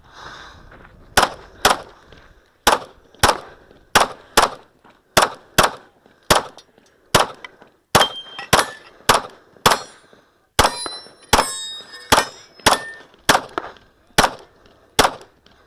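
A long string of 9mm pistol fire from a Smith & Wesson M&P 2.0, about two dozen shots, many in quick pairs, fired on the move through a practical-shooting stage. Some shots are followed by a short metallic ring.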